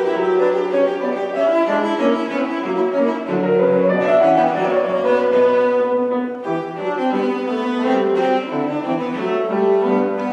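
Cello bowed in a classical piece, a continuous run of notes with no break.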